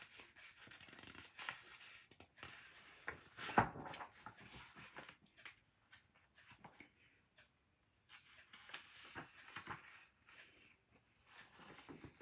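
Faint rustling and small clicks of a paper picture book being handled and its pages turned, with one sharper knock about three and a half seconds in.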